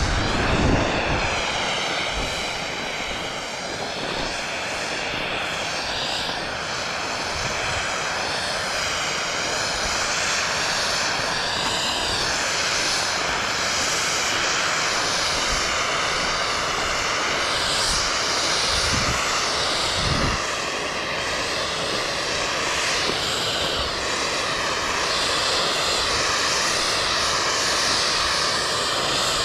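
Skis hissing and scraping over packed snow on a continuous downhill run, with wind rushing over the microphone and an occasional low thump.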